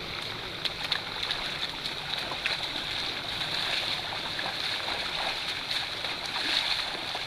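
Shallow river water running steadily, with scattered small splashes of feet as several people wade through it.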